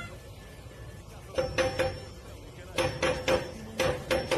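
A cat pawing at a metal sliding door bolt and its hanging padlock, rattling them against the wooden door. The clanks come in three bursts about a second apart, each with a ringing metallic tail.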